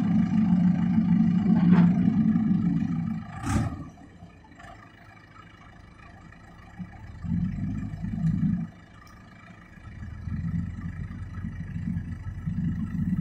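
Heavy diesel engine revving hard, dropping back about four seconds in, surging briefly in the middle, then building up again toward the end. A couple of sharp clanks in the first few seconds.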